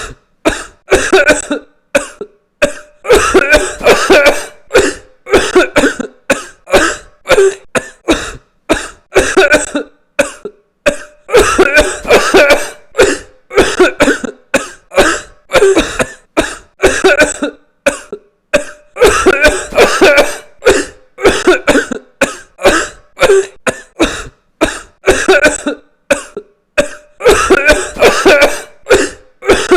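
A person coughing over and over, in quick runs of several sharp coughs with brief pauses between the runs.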